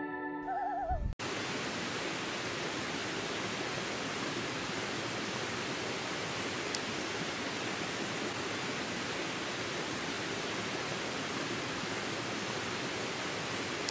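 Forest stream rushing over rocks in small cascades: a steady, even rush of water. It starts abruptly about a second in, as ambient music cuts off.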